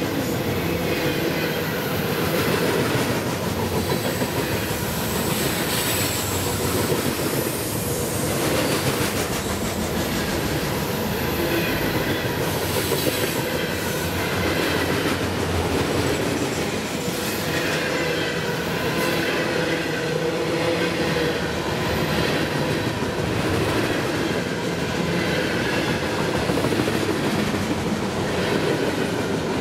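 Freight train's loaded flatcars rolling past at close range: a steady rumble and clatter of steel wheels on the rails, with a faint high wheel squeal wavering now and then.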